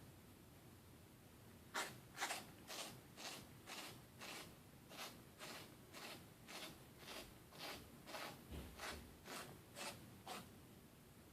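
A cat licking the plastic protective cone around its neck: a steady run of short, raspy tongue strokes, about two a second, starting about two seconds in and stopping near the end. The cat licks the cone because the cone keeps her from grooming herself.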